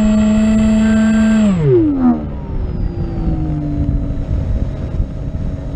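Battery-powered flying wing's electric motor and propeller whining at a steady pitch, heard from the onboard camera; about one and a half seconds in the throttle is cut and the whine falls quickly away, leaving wind noise as the wing glides.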